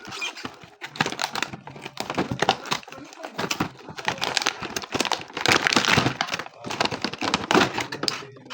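Toy packaging being opened, crinkling and rustling in dense, irregular bursts.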